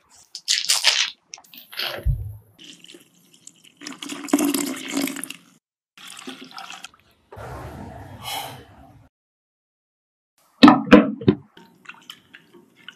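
Foil wrapper on a block of cream cheese crinkling as it is unwrapped, then milk pouring into a glass bowl. Near the end comes a quick run of loud sharp knocks.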